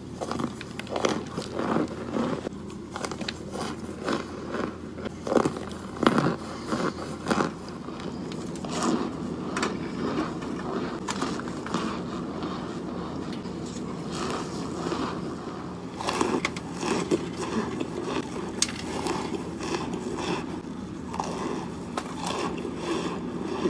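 Close-up crunching and chewing of hard, crumbly white chunks, with repeated bites and crackles, over a low steady hum.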